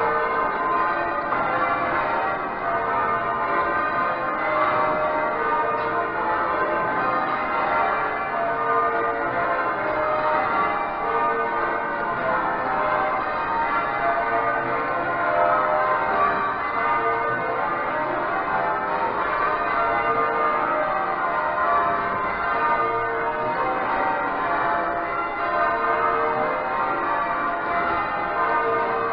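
Change ringing on Exeter Cathedral's ring of twelve heavy church bells, the tenor weighing about 72 cwt: a steady, unbroken stream of bells struck one after another, their tones overlapping and ringing on into each other.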